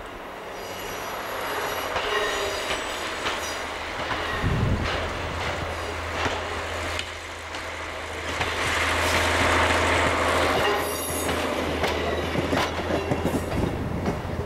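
ČD class 810 diesel railbus approaching and passing, its engine running with a low drone that is loudest about two-thirds of the way in. Thin high squealing from the wheels comes early on the curve, and the wheels click over the rail joints as it goes by.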